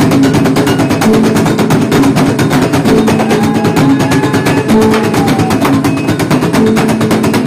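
Gordang sambilan, the Mandailing ensemble of large tuned drums, beaten rapidly with wooden sticks in a dense, unbroken rhythm, with steady low held tones sounding underneath.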